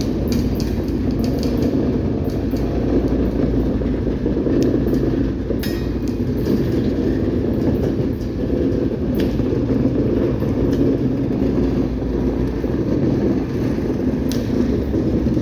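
Loaded coal train rolling past: a steady, heavy rumble of hopper cars on the rails, with frequent short clicks from the wheels.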